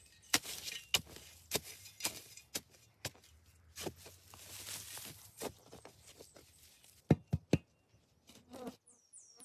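Rustling and scraping with scattered knocks, typical of hands working with natural materials, and three sharp knocks in quick succession about seven seconds in. A bird starts chirping near the end with quick falling notes.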